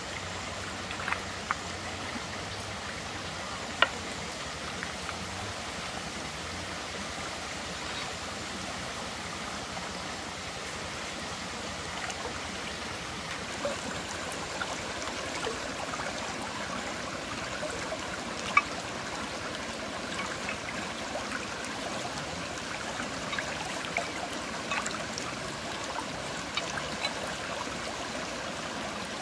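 Shallow rocky stream trickling and gurgling steadily. A few short clicks and small splashes sound over it, the sharpest about four seconds in.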